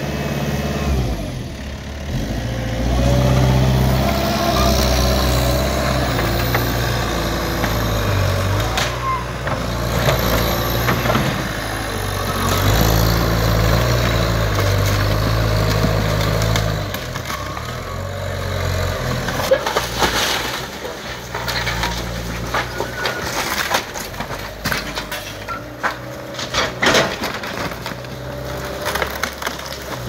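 Skid steer engine working under load, its pitch rising and falling, while wood framing is crushed and splintered. About halfway through the engine drops back, and sharp cracks and snaps of breaking timber come thick and fast.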